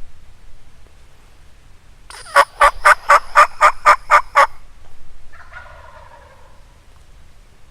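Turkey calling: a loud run of about nine evenly spaced notes, about four a second, then a softer, shorter call about a second later.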